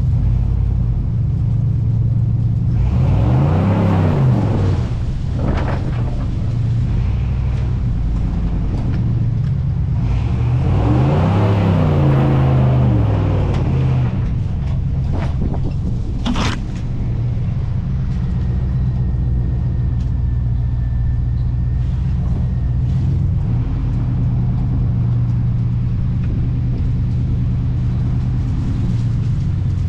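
OBS Chevy pickup truck driving, its engine running steadily. The engine speeds up twice, about three seconds in and again about ten seconds in, rising and then falling in pitch. A single sharp knock comes about sixteen seconds in.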